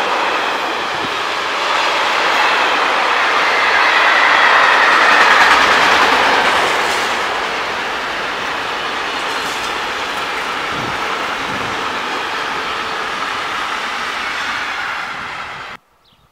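Freight train of flat wagons and tank wagons rolling past close by at speed: a steady rush of steel wheels on rails, loudest about five seconds in. It cuts off suddenly near the end.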